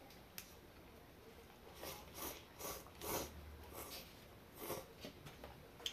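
Noodles being slurped from a cup of instant ramen: a quick run of short, breathy slurps about two seconds in, ending around the five-second mark.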